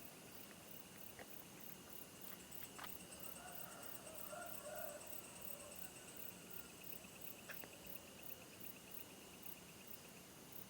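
Night insects trilling steadily in fast, even pulses, a high buzzing chorus. A few faint clicks and a soft muffled sound about four to five seconds in.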